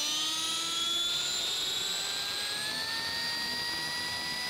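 Align T-Rex 600 electric RC helicopter spooling up on the ground, its motor and rotor whine rising steadily in pitch and levelling off later on as the rotor comes up to speed.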